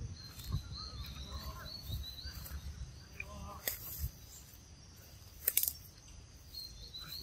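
Forest ambience: a high, wavering trill comes and goes, over a low rumble, with a few sharp clicks, the loudest about five and a half seconds in.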